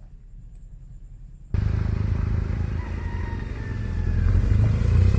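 BMW R1200GS motorcycle's boxer twin engine running. It comes in abruptly about a second and a half in after a quiet start, with a low, even pulse that grows louder toward the end.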